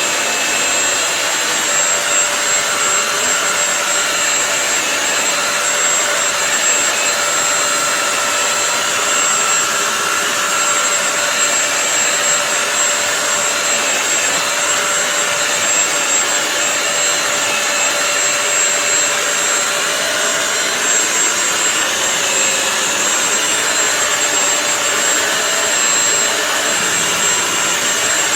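Bissell CrossWave multi-surface wet-dry floor cleaner running: a loud, steady rush of suction with a constant motor whine and a thin high whistle, unchanging throughout.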